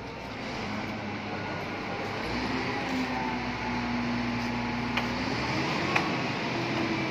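Steady drone of a vehicle engine whose low tone rises and falls in pitch, with two sharp metallic clicks about five and six seconds in as the van's rear door latch is worked open.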